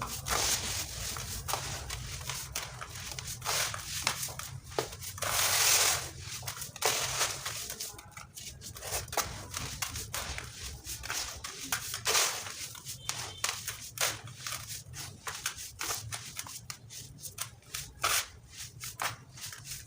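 Dried sand-cement chunks being crumbled and crushed: a dense run of dry, crisp crunches and cracks, with a louder crumbling burst about six seconds in.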